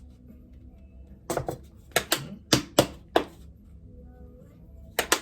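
Sharp clicks and knocks from kitchen containers and utensils being handled: a quick run of about half a dozen clicks a second or so in, then two more near the end.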